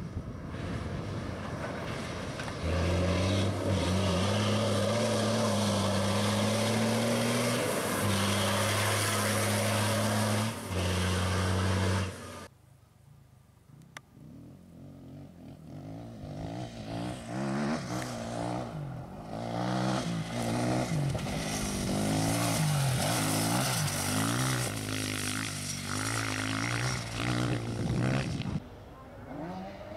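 A rally-raid truck's engine pulling hard as it drives past, its steady note broken briefly twice by gear changes, then cut off suddenly about twelve seconds in. After a short lull, a rally motorcycle's engine revving as the bike rides toward and past over rough ground, its note rising and falling with the throttle and gear changes.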